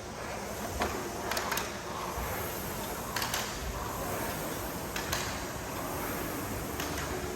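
Sharp knocks and clatters of gym equipment during a workout, about one every couple of seconds, over a steady background hiss.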